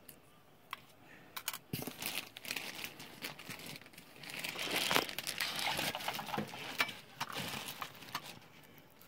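Packing wrap being handled and pulled open by hand, crinkling and crackling. A few scattered crackles at first, then dense crinkling from about four seconds in, easing off near the end.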